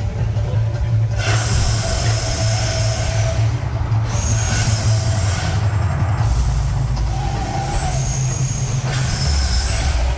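Mirage volcano attraction erupting: a steady deep rumble with hissing rushes, each lasting two to three seconds, coming one after another over it.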